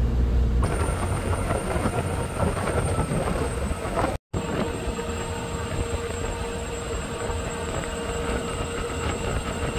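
Steady mechanical rumble and hum of a car ferry under way, heard from its open vehicle deck. The sound drops out for a split second about four seconds in.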